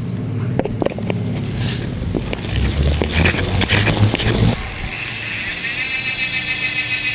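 Rear wheel of a Campagnolo wheelset spun by turning the crank. For the first few seconds there are clicks and rattle from the chain and cassette; from about five seconds in, the freehub runs as a steady high buzz while the wheel coasts. The hub runs on loose ball bearings, and its sound is very soft.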